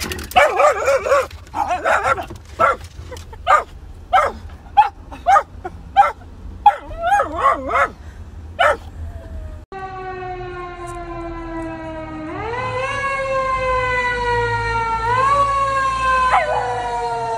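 A small dog barking and yapping in short sharp bursts, ending in a brief warbling whine. Then a long wailing tone that steps up in pitch twice and slowly falls, like a passing siren.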